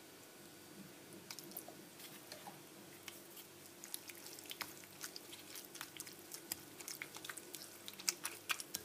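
Faint wet squishing and small clicks of a wooden spoon stirring a damp paste of grated potato, clay and powder in a ceramic bowl, the clicks coming more often from about halfway on. A low steady hum lies underneath.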